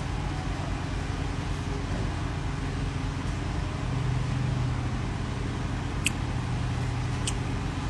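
Steady low mechanical hum, with a low drone that grows stronger about four seconds in, and two brief clicks near the end.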